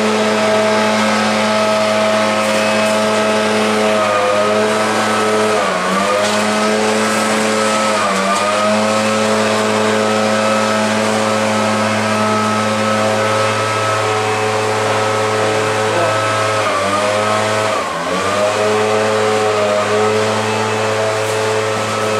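An engine running at a steady speed, loud and droning, its pitch dipping briefly several times.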